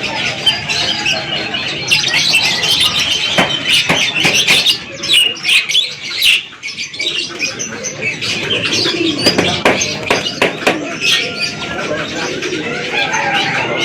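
Many caged songbirds, canaries among them, chirping and singing at once, with a cluster of sharp clicks and knocks a few seconds in.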